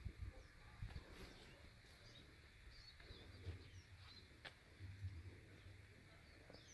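Near silence with faint, scattered bird chirps and a few soft low rumbles.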